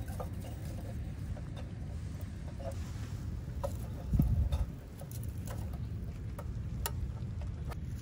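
Firewood crackling as it burns in a small Soomloom MECA wood stove: scattered sharp pops and clicks over a steady low rumble, with one dull low thump about four seconds in.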